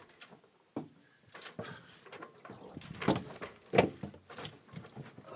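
A series of irregular knocks and clatters, hard objects bumping, with the two loudest about three and four seconds in.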